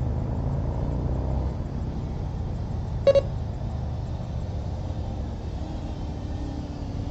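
A steady low rumble that eases about a second and a half in, with a short double electronic beep about three seconds in.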